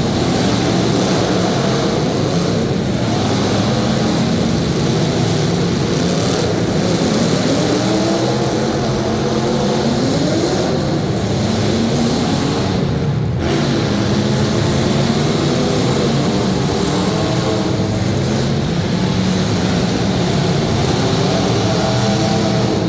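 Several demolition derby cars' engines running and revving over one another, their pitches rising and falling, with a clear rising rev about ten seconds in.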